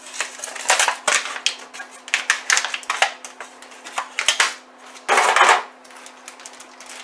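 Thin aluminium foil pans crinkling and a plastic zip-top freezer bag rustling as slabs of frozen fudge are lifted and handled, in a string of short crackly bursts. The loudest crinkle comes about five seconds in. A faint steady hum runs underneath.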